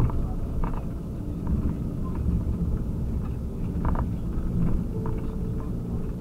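Converted camper van driving slowly over a rough, patched lane, heard from inside the cab: a steady low engine and tyre rumble with a few short knocks and rattles as it rides the bumps.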